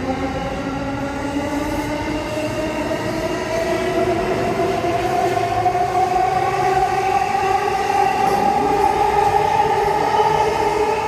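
JR East E233-series electric train pulling away, its traction motors whining in several tones that climb slowly in pitch as it gathers speed, over the rumble of the train.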